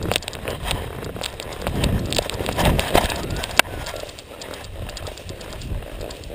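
Wind buffeting a paraglider's body-mounted camera microphone in flight: gusting rushing noise with scattered crackles and clicks, and one sharp click about halfway through.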